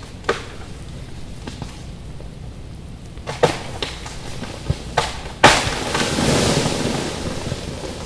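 Ice-laden tree branches cracking, with a few sharp snaps and then, about five and a half seconds in, a loud crash lasting a couple of seconds as a branch breaks and falls. Steady freezing rain patters underneath.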